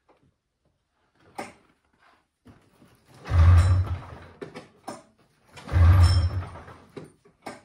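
Two pulls on the recoil starter of an old Polaris Trans Sport snowmobile's two-stroke twin-cylinder engine, a cold start: each pull turns the engine over in a short loud burst that dies away within about a second without catching.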